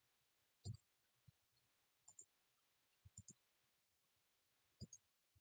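Faint computer mouse clicks: about nine short, soft clicks, some in quick pairs like double-clicks, over near silence.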